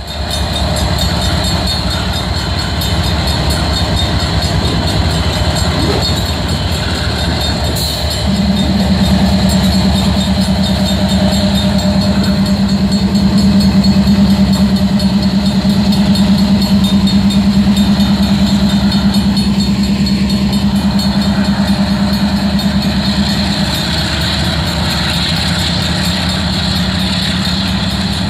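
Freight train's diesel locomotives running past at a level crossing, with a steady engine drone that grows louder about eight seconds in and eases near the end. The crossing's Safetran mechanical bell rings along with it.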